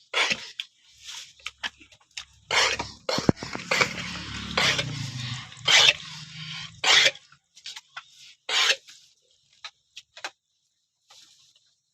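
A goat that has recently given birth coughing, about seven short, noisy coughs at uneven intervals, the last one near the end.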